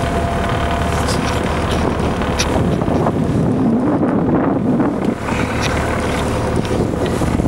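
Wind buffeting the microphone on the deck of a motor launch under way, over the launch's steady engine drone and the sea rushing past the hull.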